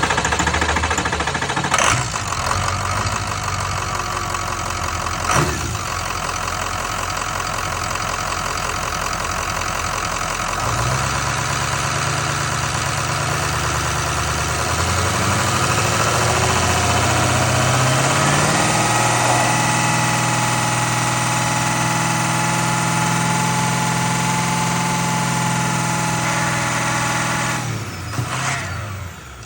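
Ford 6.0 Power Stroke diesel V8 running: it idles, then is brought up to about 2500 rpm and held, where a steady high whine comes from the oil filter area. The engine is shut down and runs down near the end.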